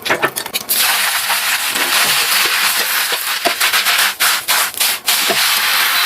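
Food hitting hot oil in a pan and sizzling loudly, the hiss starting suddenly under a second in and running steadily, with a few sharp clicks of a utensil against the pan.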